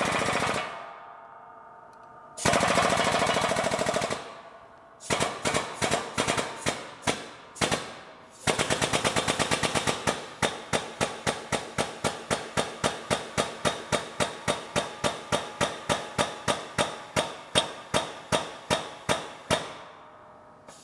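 Shop press's air-over-hydraulic pump driving the ram down to press a taper bearing onto a transmission main shaft. It runs in two short continuous bursts, then pumps in sharp, evenly spaced strokes, very fast at first and then slowing to about three a second as the ram meets the load.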